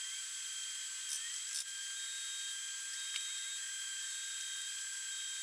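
TIG welding arc on stainless steel: a steady hiss with a thin high whine, and two short clicks just after a second in.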